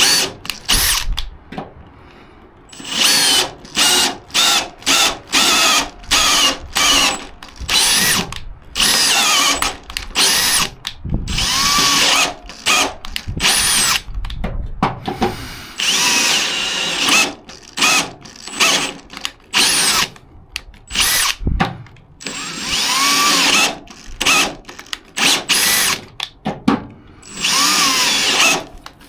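Power drill run in many short bursts, its motor whining up and cutting off again and again, while driving an M8 thread tap that won't turn; the drill's chuck is slipping on the tap.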